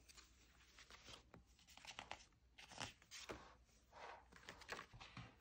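Faint rustling and swishing of paper as the pages of a handmade junk journal are handled and turned, several soft swishes over a few seconds.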